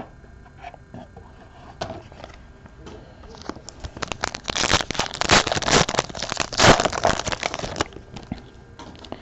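Trading card pack wrapper crinkling and tearing as it is ripped open: a dense crackle that starts a few seconds in and lasts about four seconds.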